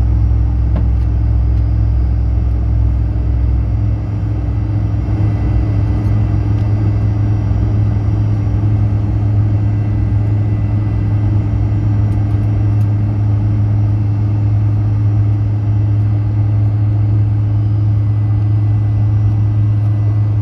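Fokker 100's rear-mounted Rolls-Royce Tay turbofan running steadily while taxiing, heard inside the cabin close to the engine as a loud, even drone with a strong low hum and faint steady whine tones above it.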